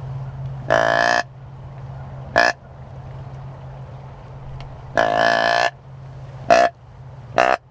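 Deer grunt call blown five times: two longer notes and three short ones, each a steady pitched grunt, over a steady low hum.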